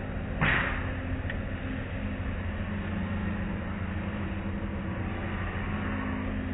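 Automatic car wash heard from inside the car: a steady rumble of water and foam spraying onto the car and cloth brushes scrubbing, over a low hum from the wash machinery. About half a second in there is a sudden loud slap against the car.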